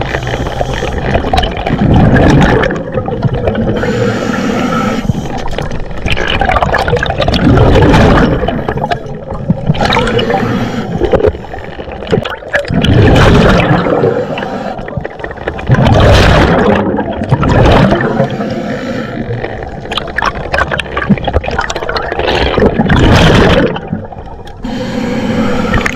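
Scuba diver breathing through a regulator underwater: loud rushing bursts of exhaled bubbles every two to three seconds, with quieter stretches between.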